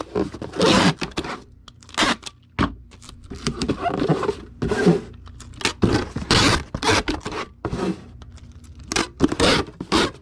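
Cardboard shipping box and packing materials being handled and folded: a quick string of scrapes, rustles and tearing sounds, some sharp and loud.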